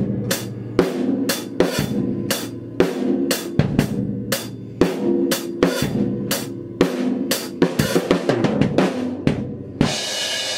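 Drum kit played hard in a fast, steady pattern of snare, bass drum and cymbal hits, ending about ten seconds in on a final cymbal crash left ringing.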